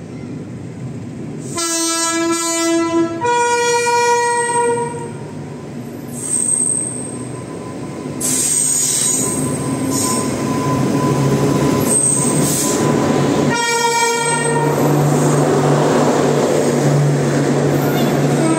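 WAP-7 electric locomotive sounding its two-tone horn about two seconds in, a lower note then a higher one, and a shorter blast about three-quarters of the way through as it departs hauling its train. From about eight seconds in, the locomotive and coaches roll past with a growing rumble, a steady low hum and high wheel squeals at times.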